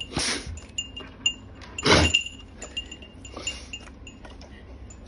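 A Saint Bernard dog sneezing: two loud sneezes about two seconds apart, the second the loudest, then a fainter one. Light metallic chime-like pings sound in between.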